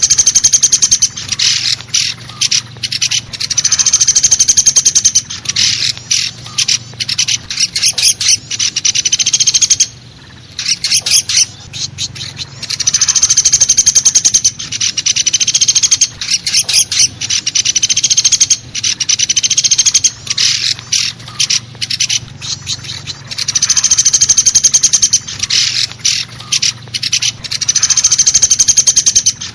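Woodpecker lure-call recording: long, fast rattling calls, each about two seconds, repeating every few seconds with sharp single call notes between them. A faint steady low hum lies underneath.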